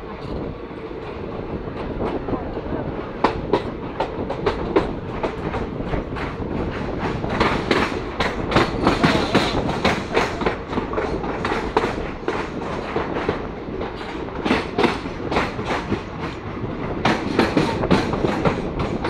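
Mangala Express passenger coaches running, heard from aboard: a steady rumble with a fast, uneven clickety-clack of wheels over rail joints, which grows louder and denser twice.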